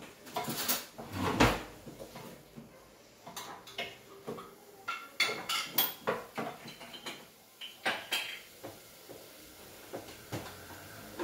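Kitchen clatter: a spoon stirring and knocking in a stainless steel pot on the stove while cutlery is handled, in scattered short clinks and knocks, the loudest about a second and a half in.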